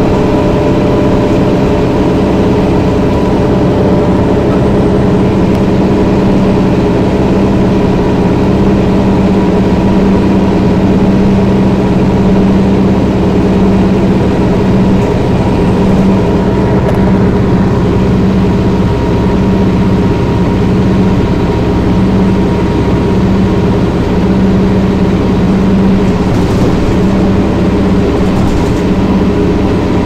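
1994 TMC RTS transit bus's Detroit Diesel Series 50 diesel engine running at a steady, loud drone, with no change in pitch.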